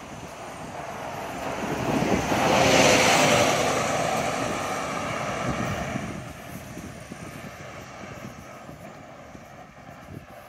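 A vehicle passing by unseen: a broad rushing noise that swells to its loudest about three seconds in and fades away over the next few seconds.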